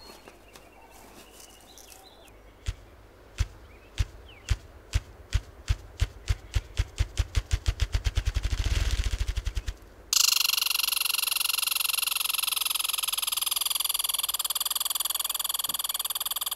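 Ruffed grouse drumming: deep wing-beat thumps, slow at first, speeding up into a whir. About ten seconds in it gives way to a louder, sustained rattling chatter from a red squirrel, its territorial call.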